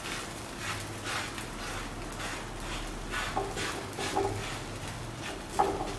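Hands pressing and smoothing raw paratha dough flat on a tawa: soft, irregular rubbing and patting. A few short pitched squeaks sound over it, the loudest near the end.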